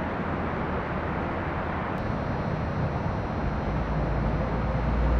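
Steady background noise with a low rumble that swells over the last second and a half.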